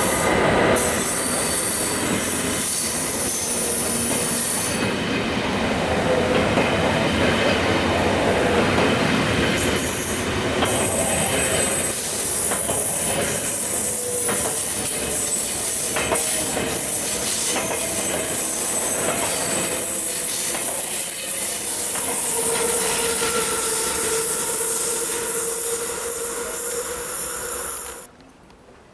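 A train rolling past at close range with its wheels squealing in several steady tones, over the clatter of wheels crossing rail joints. The sound cuts off suddenly near the end.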